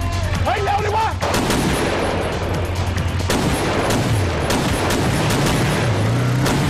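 Rapid gunfire from a staged shootout, many shots in quick succession starting about a second in. Near the end a motorcycle engine rises in pitch under the shots.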